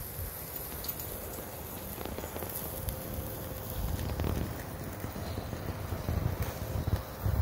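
Thick porterhouse steak sizzling on a charcoal mini grill over glowing briquettes, with occasional pops and crackles over a steady low rumble.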